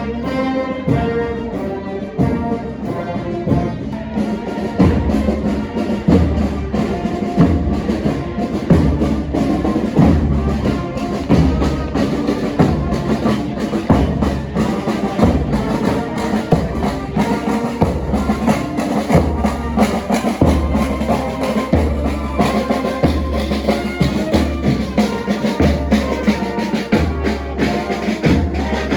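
A marching band playing: brass and a bass drum beating a steady march, about two beats a second.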